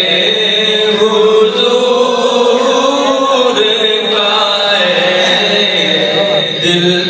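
Male voice chanting a slow, melodic Islamic devotional recitation through a mosque microphone and loudspeakers, with long held notes. A steady high-pitched whine sits under it.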